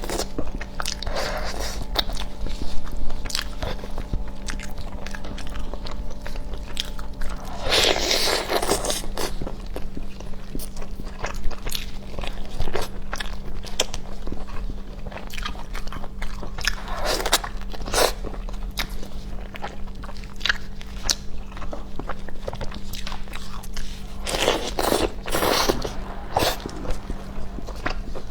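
Close-miked eating: a person biting and chewing, with a dense run of crunchy, wet clicks and three louder rushing mouth sounds, over a steady low hum.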